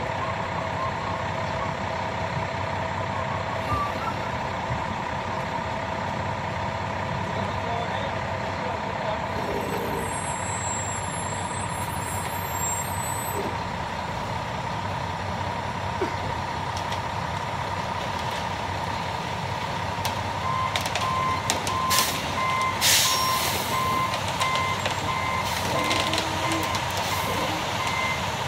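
Concrete mixer truck running steadily while it discharges concrete down its chute, with a steady whine over the engine. About two-thirds of the way through, a backup alarm starts beeping in quick, regular succession, and a few knocks and scrapes of tools sound.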